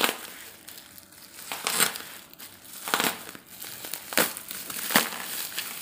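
Plastic mailer wrapping of a parcel crinkling as hands pull and work it open, with several sharp crackles about a second apart.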